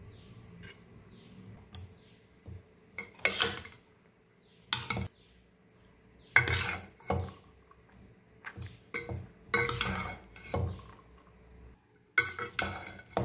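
Steel spoon scraping and clattering against a stainless steel pan in irregular bursts, mixing tamarind paste into cooked rice.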